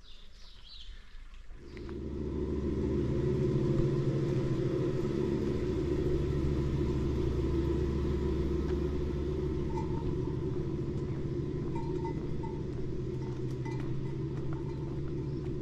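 An engine running steadily with a low, even drone, coming in quickly about two seconds in.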